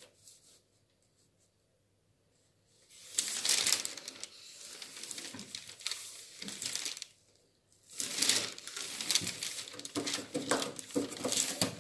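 Large sheets of pattern paper rustling and crinkling as they are pressed flat and handled, with a plastic ruler shifted across them. Quiet for the first few seconds, then two spells of rustling with a short pause between.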